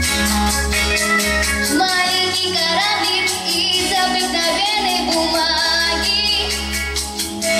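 A young girl singing a song into a microphone over a pop backing track with a steady drum beat and bass, her held notes wavering with vibrato.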